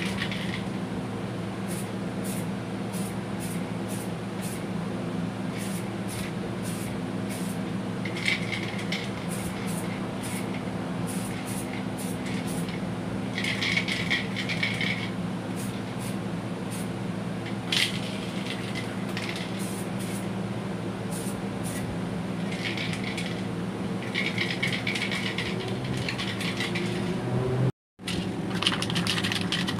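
Short hissing bursts of a 2K aerosol spray can laying clear lacquer, coming and going about eight times, over a steady machine hum, with scattered sharp clicks.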